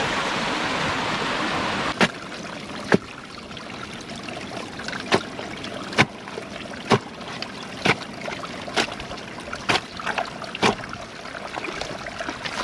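Creek water rushing steadily, cut off after about two seconds. Then a string of sharp knocks, about one a second, as a hand tool is driven into the sticks and mud of a beaver dam to dig a hole in it.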